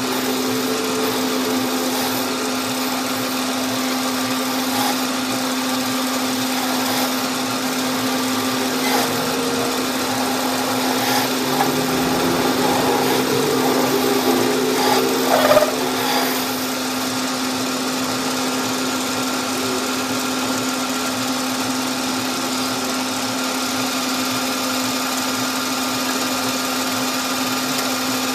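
A workshop machine tool running steadily with a constant hum. From about twelve to sixteen seconds in, a louder stretch of scraping and squealing cutting noise comes in, then it settles back to the steady run.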